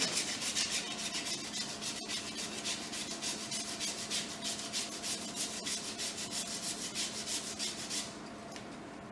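Whole nutmeg being grated by hand on a small grater: a quick, even run of rasping strokes, several a second, that stops about eight seconds in.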